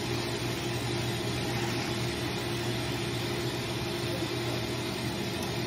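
Microbubble dog bath running: the pump gives a steady hum, with an even hiss from the bubbling water.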